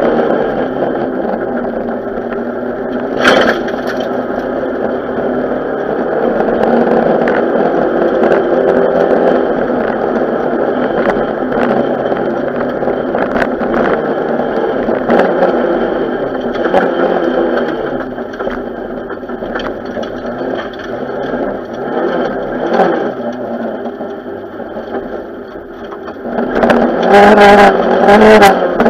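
Renault 5 GT Turbo rally car's turbocharged four-cylinder engine heard from inside the cabin, revving up and falling back through gear changes at stage pace. Sharp knocks and rattles from the car's body come through, one of them loud about three seconds in, and the engine gets louder near the end.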